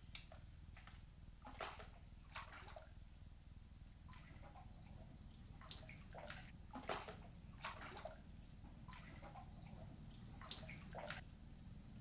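Faint water splashing and sloshing as a man wades down steps into a hot pool: a string of short, irregular splashes over a low steady hum.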